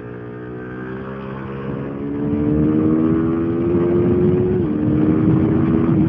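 KTM RC 390's single-cylinder engine accelerating, its pitch climbing and getting louder, with one upshift dropping the pitch about four and a half seconds in before it climbs again.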